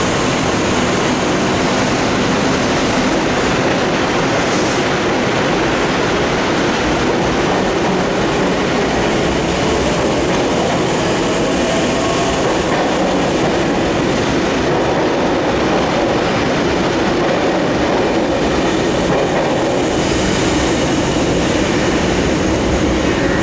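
Double-deck electric suburban train running past the platform as it pulls away, a steady noise of wheels on rails, with a faint steady tone in the second half.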